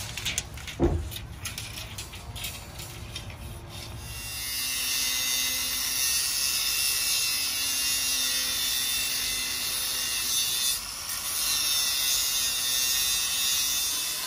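Handheld angle grinder cutting through half-inch steel rebar: a steady high hiss of the cut that starts about four seconds in and dips briefly near eleven seconds. Before it come a few knocks from handling the rebar.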